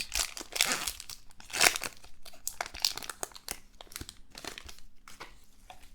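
A trading-card pack wrapper crinkling and tearing as the pack is opened, with irregular rustles and clicks of handling. The loudest crinkles come in the first two seconds, then it tails off into softer rustling.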